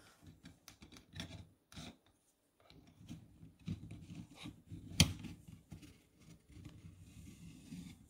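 Plastic slotted spoon scraping and clicking against hard-boiled eggs in a plastic microwave egg boiler as the eggs are scooped out, with one sharp knock about five seconds in.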